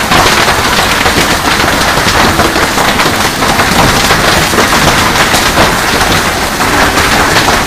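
Hailstones pelting down hard, a loud, dense, unbroken clatter of countless small impacts.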